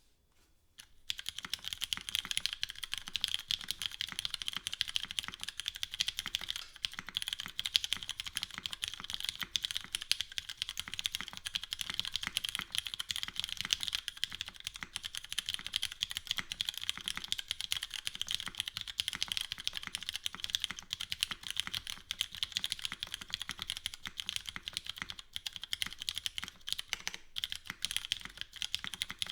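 Continuous fast typing on a custom mechanical keyboard with lubed and filmed Cherry MX Brown tactile switches, GMK keycaps and a gasket-mounted aluminum plate with no foam: a dense, even stream of key clacks that starts about a second in.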